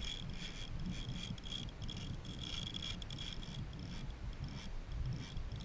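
Spinning reel's drag clicking in fast rattling runs as a hooked fish pulls line off, with wind rumbling on the microphone.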